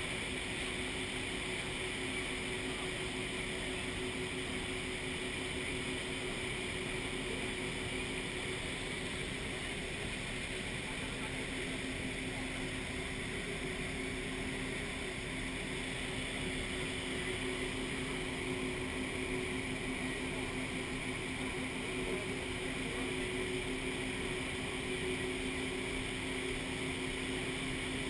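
Maid of the Mist tour boat's engine running with a steady hum, under a continuous rush of water and wind noise near the falls.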